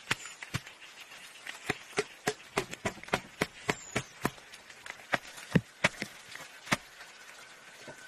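Wooden fence stakes being struck with a hand tool: a run of sharp wooden knocks, irregular at about two or three a second, stopping about seven seconds in.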